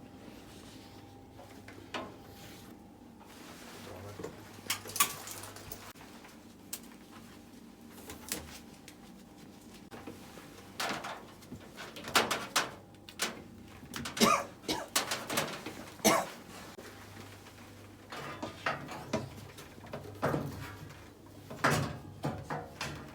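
Irregular knocks, clicks and scrapes of hand work on range hood parts during its replacement, coming in clusters, with the busiest stretch in the middle.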